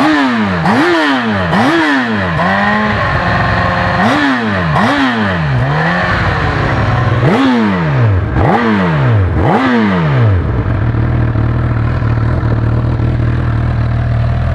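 Honda CB1000R inline-four with an aftermarket sport exhaust header and mid-pipe, revved in quick throttle blips, each rising and falling in pitch, in groups of two or three with short idles between. About ten seconds in it settles into a steady idle.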